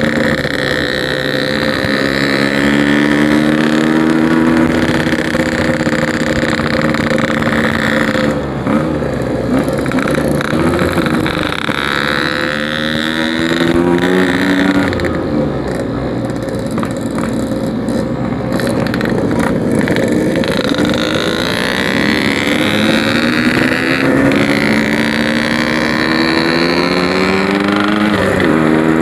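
Yamaha RX-King's two-stroke engine under way through a packing power exhaust, its pitch climbing several times as the rider accelerates, dropping back in between as he eases off or shifts.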